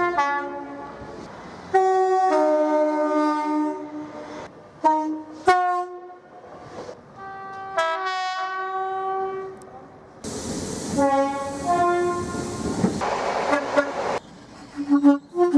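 British train horns in a string of short clips cut together: two-tone blasts, some notes sounded singly and some held together as a chord. In the later clips the noise of a passing train lies under the horn.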